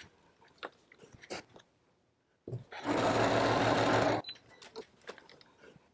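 Janome sewing machine running for a short stitching run of under two seconds, starting about two and a half seconds in, as a fabric strip is sewn on. Before it come a few faint small clicks.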